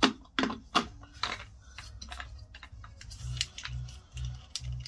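Plastic spray-pump head being fitted and screwed onto a plastic bottle: a run of light, irregular clicks and taps.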